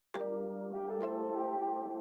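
Soft ambient background music of sustained held tones, beginning after a momentary break at the start, with a new note coming in about a second in.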